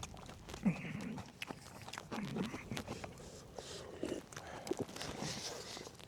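Eating noises: scattered sharp clicks and crunches of chewing, with a few short low murmurs.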